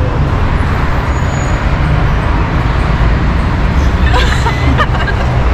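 Steady low rumble of city street traffic, with brief voices about four seconds in.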